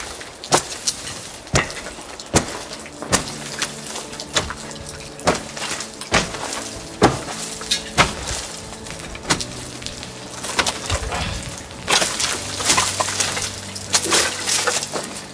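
A steel bar knocking and prying dried mud-and-straw wall daub and its lath off a timber frame: irregular knocks with crumbling, cracking clatter as chunks break away and fall, a strike every second or less, coming thicker near the end.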